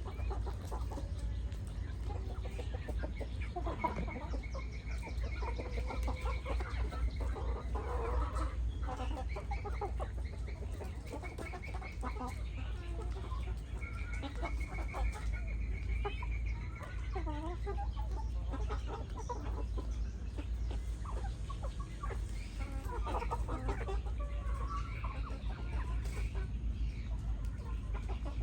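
A flock of chickens clucking and calling, with many short calls overlapping, over a steady low hum.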